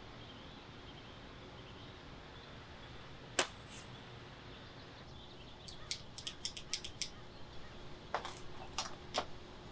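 A single sharp click, then a quick run of about eight light clicks and taps, and a few more near the end, as small hard objects are handled.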